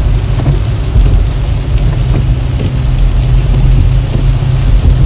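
Heavy rain falling on a car, heard from inside the cabin, over the car's steady low rumble.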